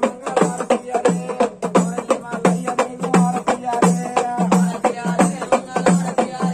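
Traditional ritual music: rhythmic drumming in an even run of sharp strikes, about four a second, with a low pulsing drum tone and a melody over it.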